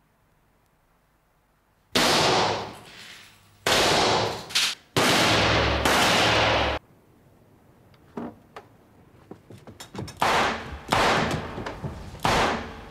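Gunshots fired in rooms, each loud report followed by a ring of echo. After a short hush, four heavy shots come close together, then a quicker string of shots about a second apart near the end.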